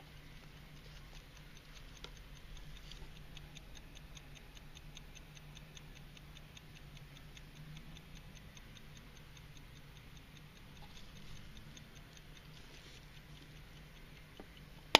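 Carriage clock's platform escapement ticking quickly and lightly, about five ticks a second. A single sharp knock comes right at the end.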